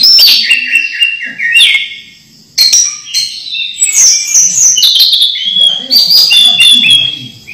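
Orange-headed thrush singing loudly: a fast, varied run of whistled phrases, slurred glides and chattering trills, with a brief pause about two seconds in.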